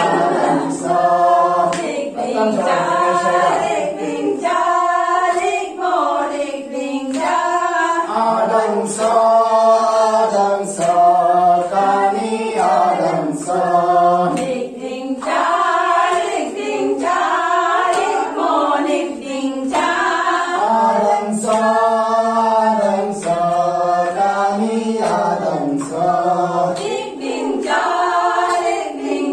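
A small group of men and women singing together unaccompanied: a Tangsa folk chant in short, repeating phrases that step up and down in pitch.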